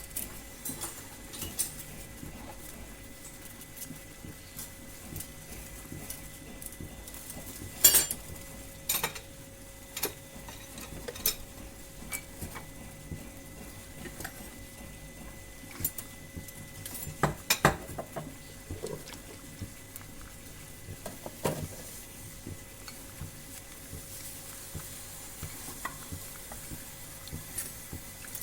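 Metal spoon and kitchen utensils clinking and scraping against a pot while stirring, with scattered sharp clinks, the loudest about eight seconds in and several close together a little past halfway.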